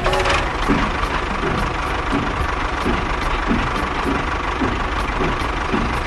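Small motor of a homemade mini tractor or mini bulldozer running steadily: a continuous whirring with a steady whine over it and a regular low knock repeating under it.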